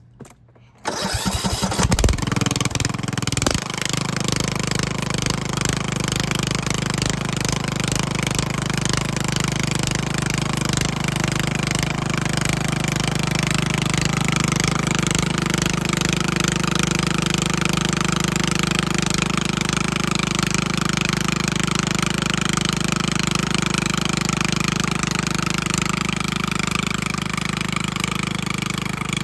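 Riding lawnmower's small engine starting up about a second in, rough for a few seconds, then settling into a steady run.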